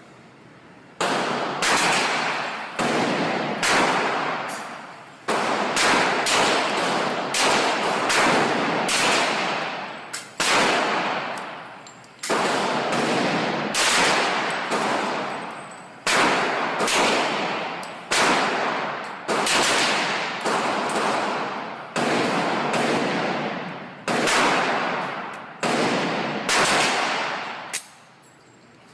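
Glock 35 pistol in .40 S&W firing a long string of shots, roughly one to two a second, each with a long echoing tail. The firing stops about a second before the end.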